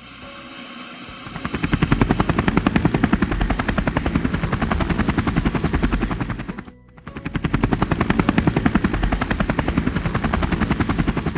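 Helicopter rotor blades chopping fast and evenly, a dubbed-in helicopter sound. It swells up over the first two seconds, drops almost away for a moment about seven seconds in, then comes back.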